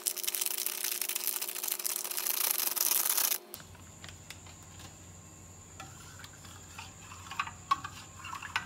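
Gelatin powder pouring from a sachet into a glass pot of hot water, a dense rasping hiss for about three and a half seconds that stops abruptly. Near the end, a metal spoon clinks a few times against the glass pot as stirring begins.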